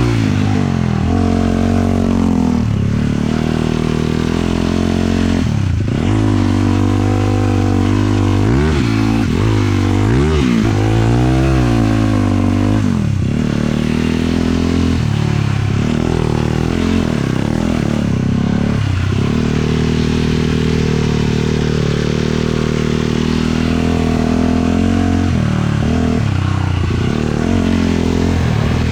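450cc single-cylinder four-stroke sport quad engine under way, its pitch rising and falling over and over with throttle and gear changes.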